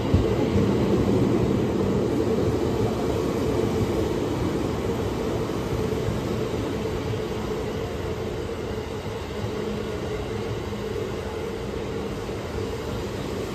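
Tokyo Metro 15000 series electric train moving slowly past the platform: a steady rumble of wheels and running gear under a steady motor hum, getting gradually quieter.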